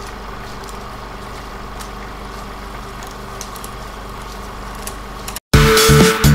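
A steady low hum, even and unchanging, like an idling engine. It cuts out briefly near the end, and loud electronic dance music with a pounding beat starts abruptly.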